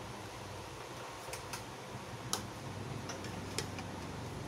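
A few light, irregular clicks and taps, like tableware being handled during a meal, over a low steady hum.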